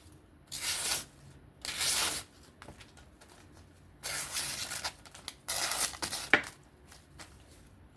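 A Kizer Original folding knife slicing through paper in four strokes, each a short rasping hiss, testing the blade's sharpness. A sharp click comes about six seconds in.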